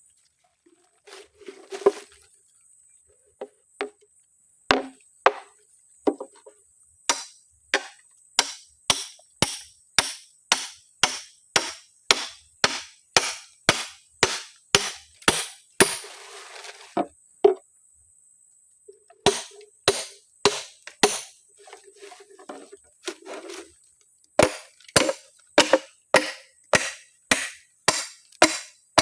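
Hand tool striking wood again and again, sharp knocks about two a second, in runs broken by short pauses with scraping and handling in between.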